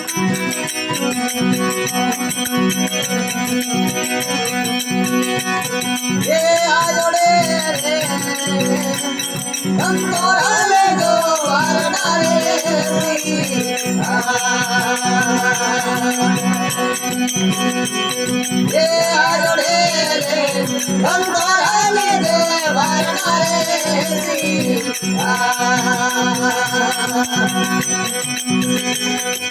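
Rajasthani folk bhajan music: a steady drone and rattling hand percussion keep time, and a wavering melody line comes in about six seconds in and returns in phrases.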